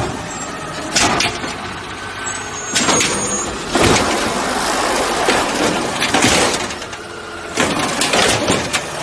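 Garbage truck running, with a steady mechanical noise and several sharp clanks and bangs.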